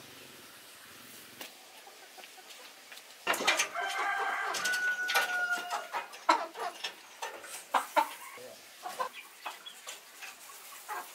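Chickens clucking and calling, starting suddenly about three seconds in, with a held call in the middle and many short sharp clicks and knocks among the clucks.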